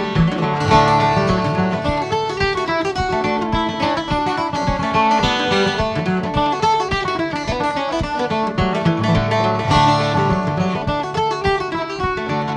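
Instrumental break of a Celtic folk tune: a steel-string acoustic guitar strumming and a long-necked, oval-bodied plucked string instrument playing along, with a steady pulse of dense notes and no singing.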